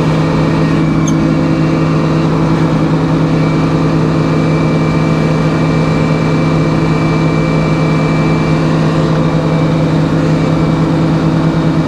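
Band sawmill running steadily as its blade cuts a slab from a hard maple log: a loud, even hum, with a thin high whine for several seconds in the middle of the cut.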